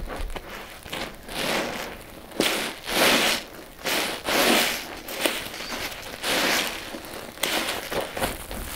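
Wet sponges loaded with a paste-and-powder mixture being squeezed by hand: about a dozen crackly squeezes, some quick and some drawn out over a second.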